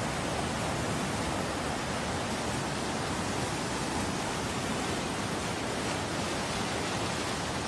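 A river in flood, its muddy water rushing past in a steady, unbroken noise.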